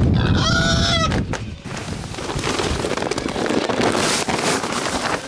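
A farm animal gives one pitched call about a second long near the start. Then comes a steady rushing hiss of feed being poured from a bag into a drum.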